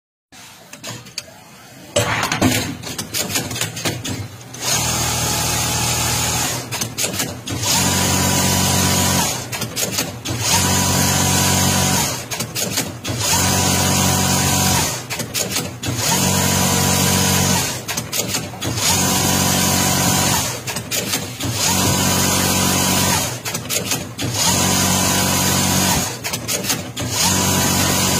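Automatic rotor winding machine winding copper wire onto a small electric-motor rotor. After a few seconds of clicking, it runs in repeated cycles: about two seconds of steady running, then a short pause with clicks, repeating roughly every three seconds.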